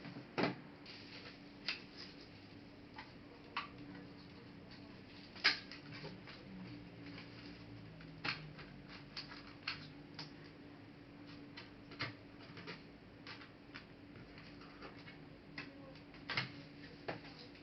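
Irregular small clicks and taps of hands and a tool working on laptop parts, with a steady low hum underneath.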